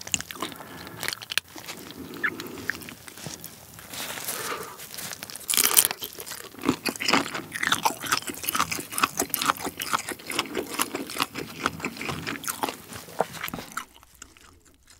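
Close-miked eating sounds of a person pulling apart and chewing shrimp: dense crunching and wet crackling bites and chews, busiest from about six seconds in and dying away near the end.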